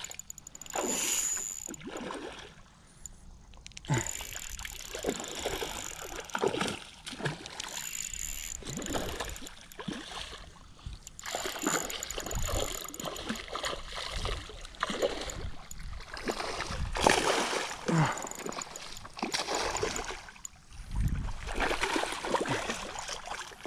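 A hooked black bass splashing and thrashing in shallow water at the bank while it is played, with the fishing reel being wound in at intervals.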